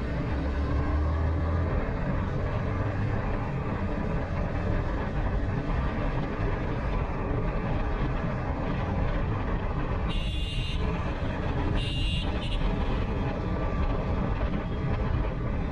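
Yamaha MT-15's single-cylinder engine running under way, with steady road and wind noise. Two brief high-pitched sounds cut in about ten and twelve seconds in.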